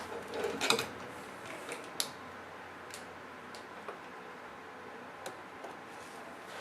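Small clicks and taps of hands handling a laptop's screen panel and casing: a quick cluster of the loudest ones just under a second in, a sharp click about two seconds in, then fainter ticks about every second.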